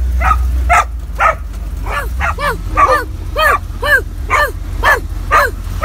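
A dog barking over and over, about two barks a second, over a steady low rumble.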